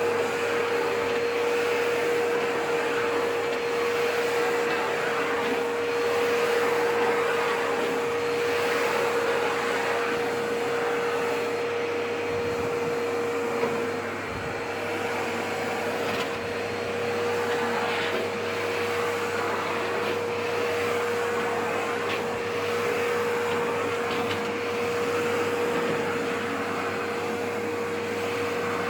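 Dry vacuum cleaner running steadily while vacuuming a carpet: a constant motor whine over an even rush of suction air.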